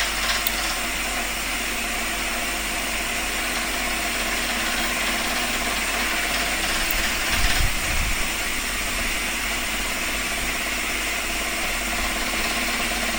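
Steady mechanical running noise from a machine, with a brief low thump about seven and a half seconds in.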